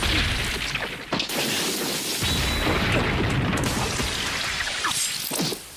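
Fight-scene sound effects in an anime: a dense, loud booming rumble, broken by a few short sharp swishes of thrown weapons.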